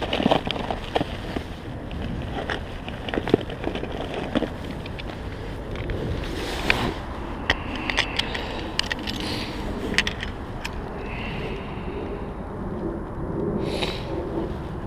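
Wind buffeting the microphone in a constant low rumble, with rustling and scattered sharp clicks from handling gear close to the microphone.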